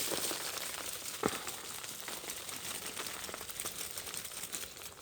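Soil and potato plants rustling and crackling as potatoes are dug out by hand, with one sharper click a little over a second in.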